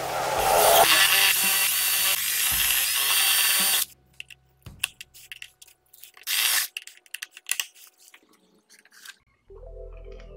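Power drill boring a mounting hole for a USB charger, running for about four seconds and then stopping abruptly. A few clicks and one more short burst of drilling follow after about six seconds, and background music comes in near the end.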